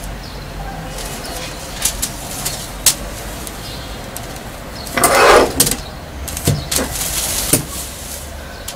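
Paper pattern and fabric rustling and sliding on a cutting table as they are smoothed and measured, with scattered light clicks and one louder rustle about five seconds in. A couple of knocks follow as metal pattern weights are set down on the fabric.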